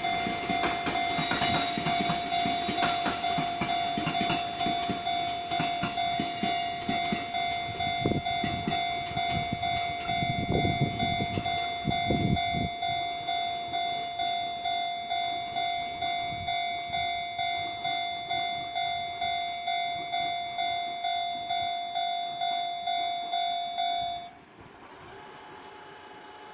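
Level crossing warning bell ringing in steady repeated strokes, a little more than once a second, that stops abruptly about 24 seconds in. Under it, for the first half, the Fujikyu 6000 series (ex-JR 205 series) electric train clatters over the rail joints as it pulls away, loudest around 10 to 13 seconds in.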